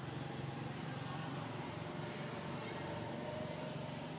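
Steady low hum of a distant engine running.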